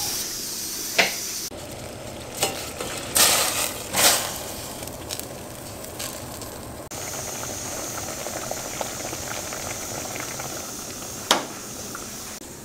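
Stovetop pressure cooker hissing steam as it comes up to pressure, after a few short knocks and rustles in the first seconds. Near the end there is a single click as the stove's burner knob is turned off.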